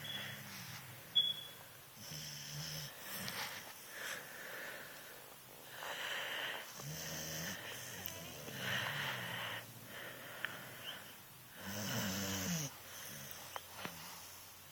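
Snoring: slow, repeated snoring breaths, roughly one every two seconds, with a short click about a second in.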